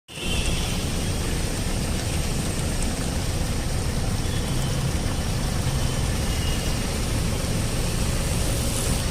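Steady rumble of vehicle engines under a constant rushing hiss, starting abruptly and holding level throughout.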